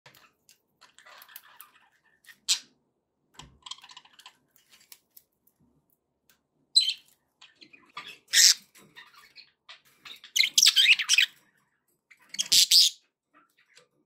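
Pet budgerigars chirping and chattering in short bursts with quiet gaps between, with a denser, louder run of chatter about ten seconds in.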